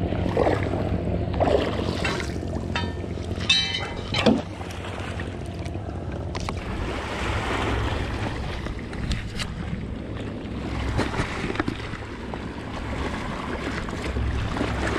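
Wind buffeting the microphone over small waves lapping on a rocky shore, with a few clicks and knocks in the first few seconds.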